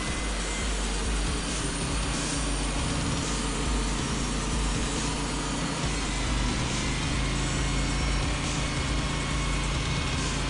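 Portable band sawmill's engine running steadily while sawing Douglas fir logs into boards.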